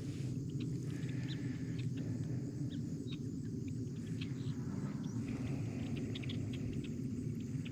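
Outdoor ambience: a steady low rumble with many short, high chirps scattered through it.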